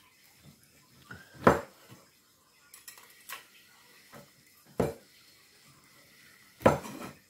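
Large knife cutting down through roast pork belly with crunchy crackling and hitting the wooden chopping board in a few sharp strokes: loud ones about a second and a half in, near five seconds and near the end, with a lighter one in between.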